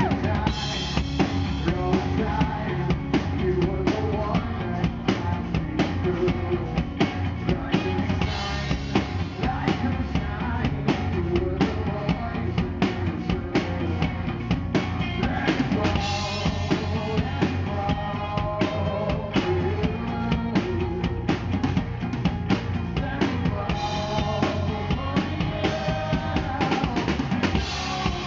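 Live rock band playing, with a drum kit's kick and snare driving the beat under electric guitar.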